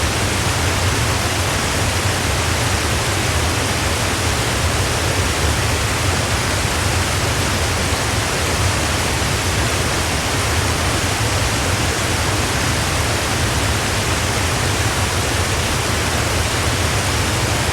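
Waterfall rushing: a steady, unbroken roar of falling water with a deep low rumble.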